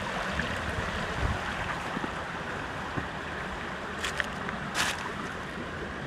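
Shallow mountain stream running steadily over rocks, a constant soft rush of water. Two brief rustles come about four and five seconds in.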